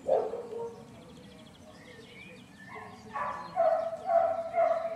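A dog yelping off camera: one short yelp at the start, then four short, high-pitched yelps in quick succession from about three seconds in.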